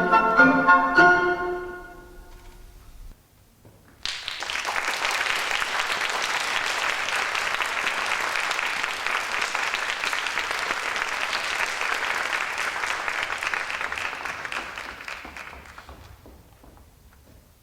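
Orchestral ballet music ending on its final chords, then a short pause. An audience bursts into applause and claps steadily for about twelve seconds before it dies away.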